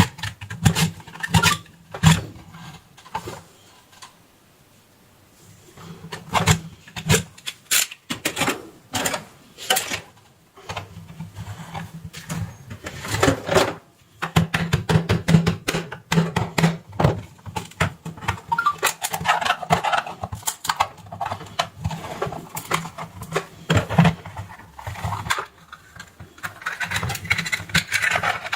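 Plastic casing of an HP printer power adapter being worked open with tools: irregular sharp clicks and knocks, with a short lull about four seconds in, then more continuous scraping and rubbing of plastic in the second half.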